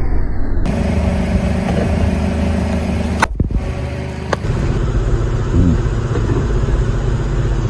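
A car's engine running steadily at low speed, with a sharp click about three seconds in and sudden shifts in the engine sound at several points.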